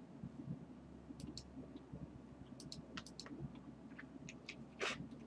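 Faint computer mouse clicks, several in quick press-and-release pairs, over a low steady hum, with one brief louder breathy noise near the end.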